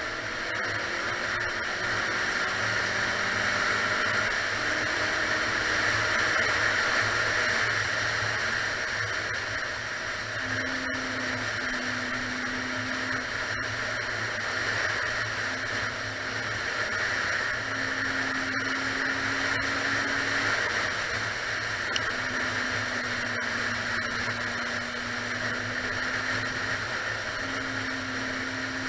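Honda Nighthawk 750 motorcycle's inline-four engine running on the road, its note holding and rising slightly for a few seconds at a time, then breaking off and resuming as gears change. Heavy wind rush on the microphone runs under it.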